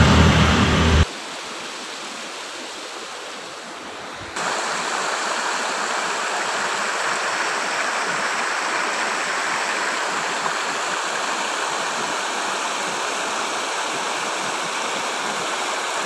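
Clear hillside stream running over bare rock slabs in small cascades: a steady rush of water, fainter at first and louder from about four seconds in.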